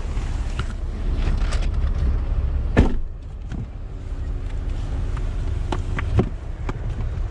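Porsche Cayenne driving on a snowy road, heard from inside: a steady low road and engine rumble with scattered knocks and clicks, and a sharp thump about three seconds in.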